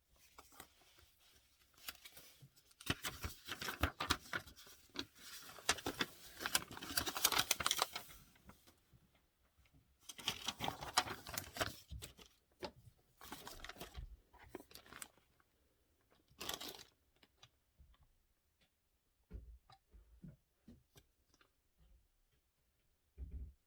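Unboxing packaging being handled: several bursts of rustling and crinkling in the first half or so, then scattered light knocks and taps.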